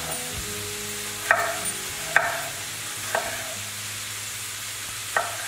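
A kitchen knife cutting a tomato on a wooden cutting board, four sharp strokes, over the steady sizzle of diced meat frying in olive oil in a pan.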